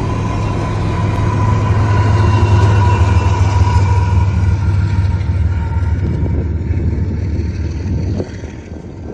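Freight train passing, with the deep steady rumble of a diesel locomotive engine and a steady high ringing tone above it. The sound swells through the middle and drops away sharply about eight seconds in.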